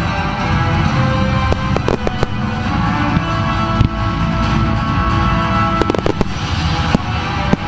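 Aerial firework shells and mines going off in sharp bangs over music: a run of bangs about one and a half to two seconds in, a quick cluster around six seconds, and a couple more near the end.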